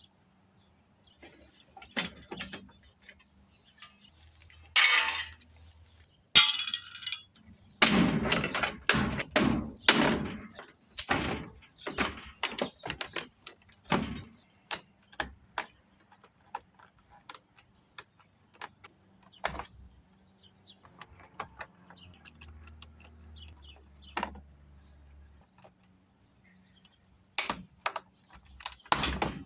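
Metal clanks, knocks and rattles as a washing machine is taken apart by hand, with scattered sharp clicks, two short scraping sounds, and a busier run of clatter in the middle.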